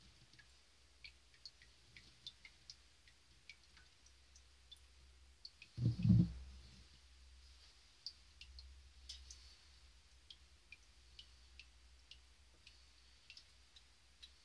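Hot deep-fryer oil crackling faintly, with scattered sharp little pops and clicks, over melted plastic cups in the fryer basket. A single dull thump about six seconds in is the loudest sound.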